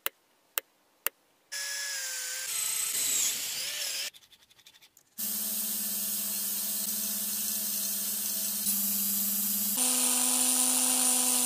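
Three sharp metal taps, then short clips of workshop power tools working a small brass block: first a machine with a wavering whine, then a motor running steadily with a low drone, and near the end a higher-pitched machine running steadily.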